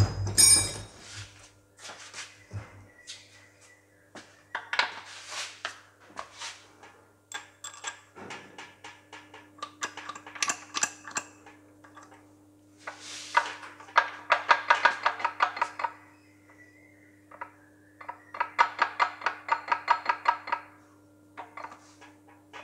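Metal hand tools clinking and knocking against a cast-iron tractor gearbox housing and bearing support, with two runs of rapid, even clicking from a socket ratchet drawing up the bolts of the lay shaft front bearing support, about halfway through and again near the end.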